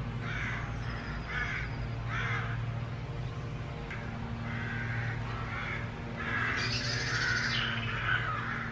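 Birds giving a series of short, harsh calls over and over, loudest near the end, over a steady low hum.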